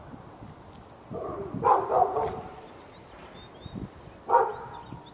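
A dog barking: a quick run of three barks about a second and a half in, then one more bark near the end.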